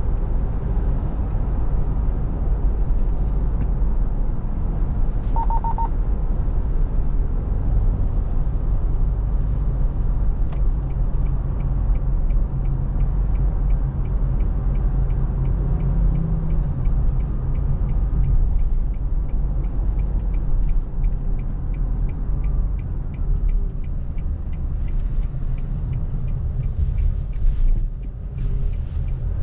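Cabin sound of a Nissan Navara pickup's 2.5-litre four-cylinder diesel running, with steady road rumble while driving. There is a brief beep about five seconds in. From about ten seconds in, an even ticking of roughly two to three clicks a second, the turn-signal indicator, runs until near the end as the truck turns.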